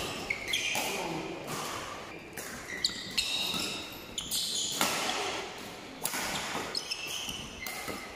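Badminton doubles rally in a large hall: sharp racket-on-shuttlecock hits every second or so, with short high squeaks of court shoes on the floor, all echoing in the room.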